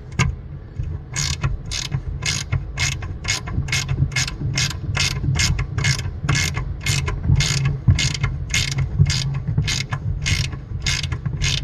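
Ratchet wrench clicking in quick regular strokes, about three clicks a second, as nuts on the pinsetter's lower pulley hub are backed off; the clicking starts about a second in. A steady low hum runs underneath.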